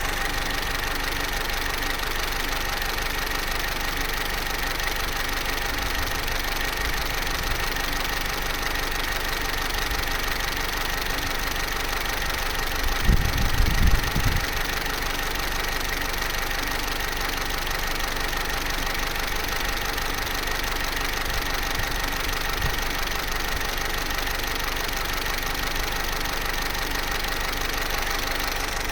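Vauxhall Corsa C's Z14XEP 1.4-litre four-cylinder petrol engine idling steadily with a timing chain rattle, the rattle that becomes pronounced at full operating temperature. A brief low rumble about halfway through.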